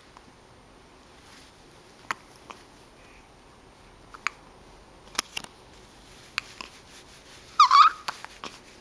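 A pet dog hiccuping: short, sharp hiccups at uneven intervals of a second or so, with a brief high whimper about three-quarters of the way through.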